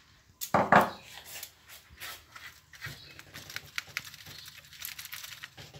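Aluminium foil crinkling and rustling, with light clicks and taps, as crayfish tails are handled on a foil-lined tray. A louder bump comes just under a second in.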